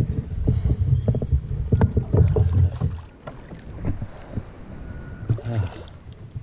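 Irregular knocks and rubbing close to the microphone as an angler in a kayak reels in a small bass on a spinning rod, loudest in the first three seconds. Quieter after that, as the little bass splashes at the surface.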